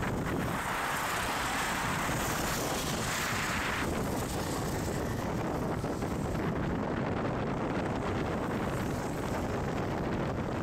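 Wind buffeting the microphone over a steady outdoor rumble of vehicles and engines, with a louder rushing hiss for about three seconds near the start.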